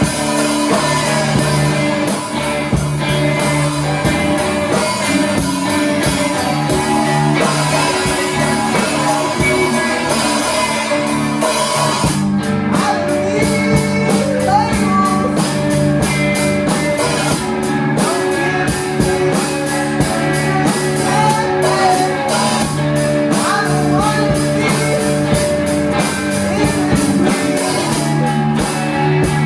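Live rock band playing: sustained guitar notes over a drum kit keeping a steady beat with cymbal hits. About halfway through, the drum and cymbal hits get sharper and a wavering melodic line comes in on top.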